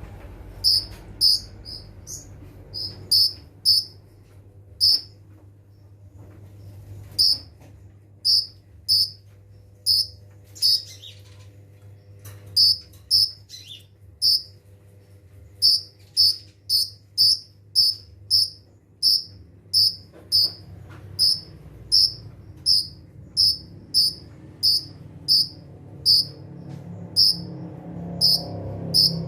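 Kolibri ninja sunbird calling in a rapid series of short, sharp, high-pitched chirps, about two a second with uneven gaps, over a faint low hum.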